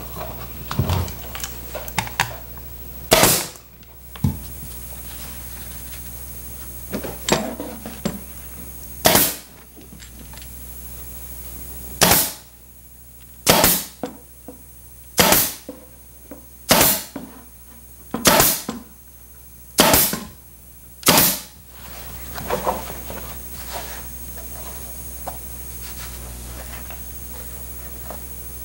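Pneumatic upholstery staple gun shooting staples through a cardboard tack strip into a chair's wooden frame: nine sharp shots, two spaced apart and then a run of seven about a second and a half apart, with softer handling clicks in between.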